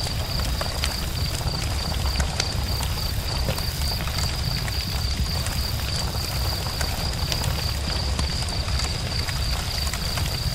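Campfire burning, its wood crackling with scattered sharp pops over a low steady rumble. A steady high-pitched tone runs beneath it.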